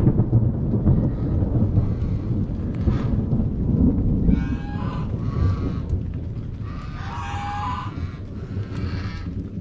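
Rolling thunder rumbling over steady light rain, slowly fading. About halfway through, farmyard animals call out twice.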